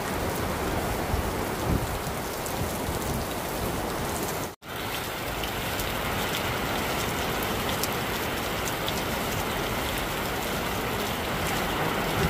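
Heavy downpour falling steadily, with the fine patter of individual drops hitting surfaces. The sound cuts out for an instant about four and a half seconds in.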